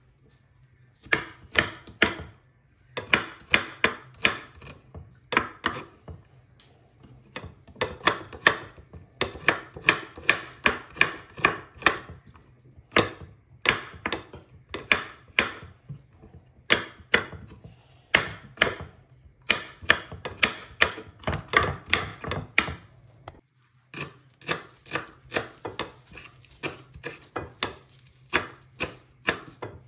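Kitchen knife chopping on a wooden cutting board: garlic cloves minced in quick runs of sharp knocks broken by short pauses, then, after a brief gap about three-quarters through, parsley chopped in a faster, more even run of strokes.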